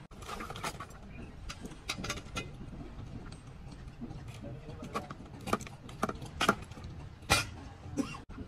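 Irregular knocks, clatters and scrapes of a long iron bar and scrap electrical cables being pried and dragged over concrete, the two loudest knocks near the end, over a steady low rumble.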